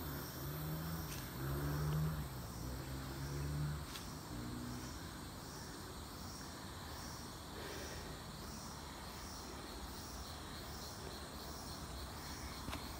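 Jungle insects calling in a steady high-pitched pulse, about two pulses a second. A low voice, humming or mumbling, is heard over them for the first four seconds or so.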